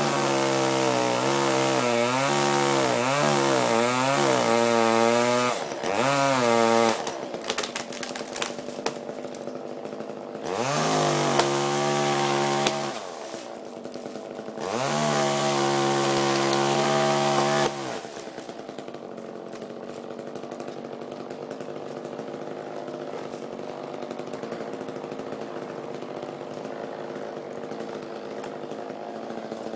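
Chainsaw cutting through a tree limb at full throttle, its pitch wavering under load, then dropping to idle about seven seconds in. It is revved up twice more briefly, then idles steadily for the last twelve seconds or so.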